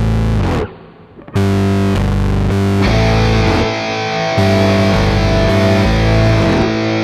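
Background rock music with distorted electric guitar chords. It cuts out briefly about a second in, then comes back.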